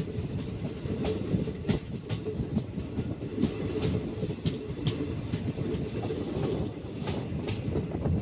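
ICF passenger coach running along the track at speed: a steady rumble of wheels on rail, broken by irregular sharp clicks from the rail joints, about one or two a second.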